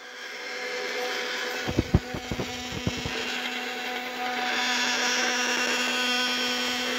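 Small electric gear motor of a homemade PET-bottle filament puller running steadily with a constant hum, the bottle strip hissing as it is pulled through. A handful of low knocks sound about two seconds in.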